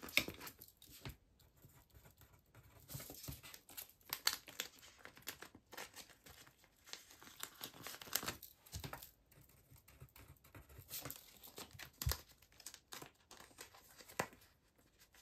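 Clear plastic binder pocket page rustling and crinkling as cards are slid into and out of its pockets, with irregular soft clicks and taps.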